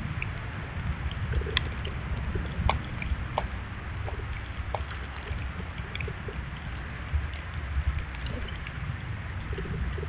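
Outdoor ambience in wet weather: a steady low rumble and hiss with scattered light ticks and drips throughout.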